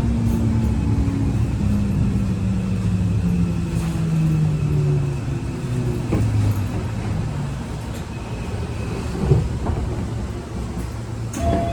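Onboard running sound of a Keio 8000 series train with Toshiba PMSM VVVF traction motors: a steady hum with several tones that fall slowly in pitch over the first five seconds as the train slows. A few brief knocks come from the running gear.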